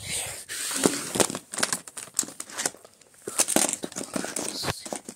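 Crinkling and rustling with many small irregular crackles, fairly loud and close.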